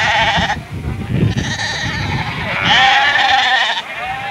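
Icelandic sheep bleating in a sheepfold: a few wavering bleats one after another, the loudest about three seconds in, over a murmur of people's voices.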